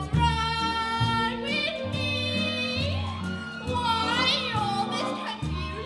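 A woman singing a show tune, holding high notes that swoop up and down, over a plucked upright bass playing deep notes about once a second.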